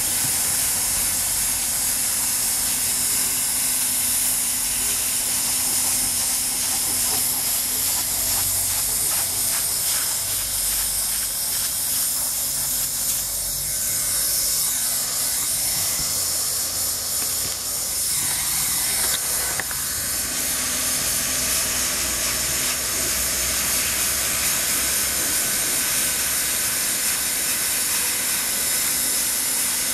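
Handheld hot-air welding gun blowing while heat-welding TPO roofing membrane: a steady hiss of hot air over a low hum from its blower motor.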